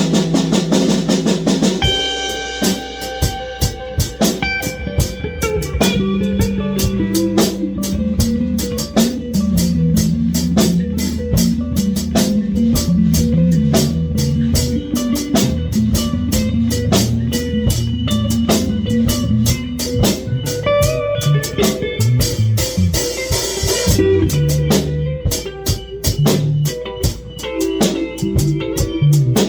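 Live instrumental rock jam: a drum kit keeping a steady beat with electric guitar, bass guitar and synth playing together.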